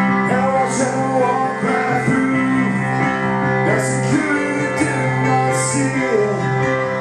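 Live music: a song played on accompanying instruments with a voice singing, held notes sliding between pitches.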